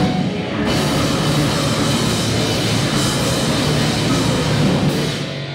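A live grindcore band playing at full volume: distorted electric guitars and bass over a drum kit, in one dense, unbroken wall of noise.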